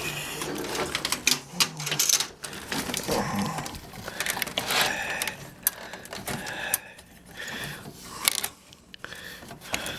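Handling noise from a desktop computer case being laid on its side and worked on: irregular clicks, knocks and scrapes of metal and plastic parts as hands fiddle inside it.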